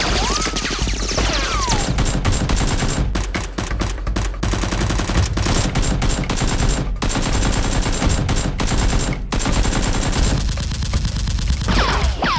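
Rapid automatic gunfire sound effects, shot after shot without a break, with falling whistles of bullet ricochets about a second in and again near the end.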